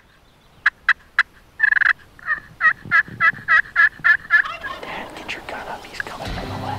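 Merriam's wild turkeys calling: a few sharp short notes, a brief burst, then a quick run of about nine notes over some two seconds.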